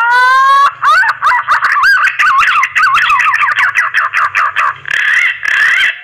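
Green pigeon (punai) mating song: a long whistled phrase that opens with a rising glide and breaks into rapid wavering, warbling notes, ending abruptly.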